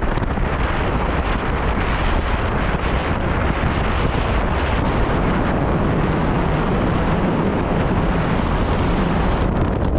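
Steady wind rushing over the microphone, over the low rumble of a moving vehicle.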